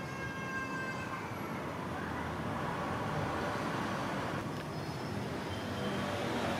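Steady road-traffic noise in the background, swelling from about two seconds in.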